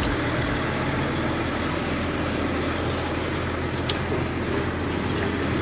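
Steady engine and road noise as a heavy container truck passes close alongside, a constant low rumble with no distinct knocks or revs.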